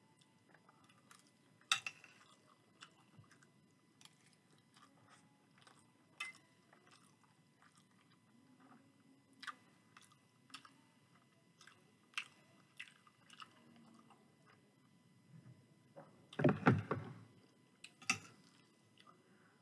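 Chewing a mouthful of chicken curry and rice: faint, scattered wet mouth clicks, with a louder burst of noise lasting about a second near the end, then a sharp click.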